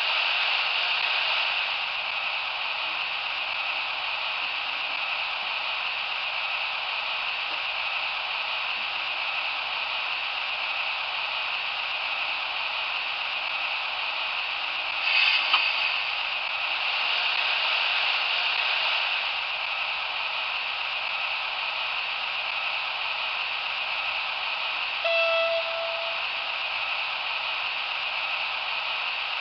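Model of a RENFE class 251 electric locomotive running on its track, with a steady hiss of motor and wheels that swells as it passes. There is a brief clatter about halfway through, and near the end a short horn note held at one pitch for about a second.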